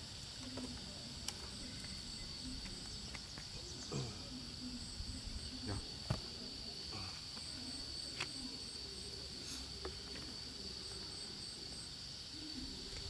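Steady high-pitched drone of insects, with short repeated chirping trills above it. A few light clicks and knocks come through as bamboo shoots are handled.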